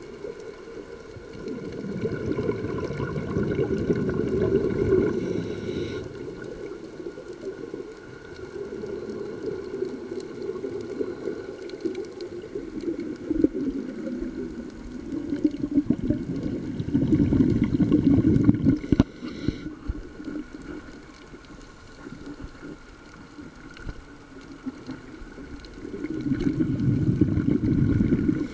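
Scuba regulator exhaust bubbles heard underwater: the diver's exhalations come as bubbling surges every several seconds, four in all, with quieter stretches of breathing in between.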